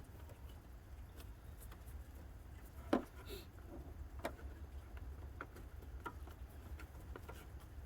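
Scattered light clicks and taps of wiring and plastic being handled while cable is routed along an engine-bay harness, the loudest about three seconds in, over a steady low hum.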